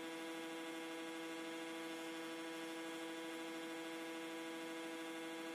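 A steady, unchanging buzzing tone at one pitch with overtones, which stops abruptly near the end.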